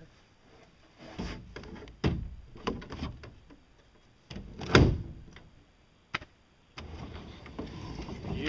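Hand-made pedal crank, a fiberglass-coated pipe in PVC bearing holders with ball bearings, turned and shifted by hand against a fiberglass hull: a string of rolling rumbles and hollow clunks, the loudest clunk about five seconds in and a longer rolling stretch near the end.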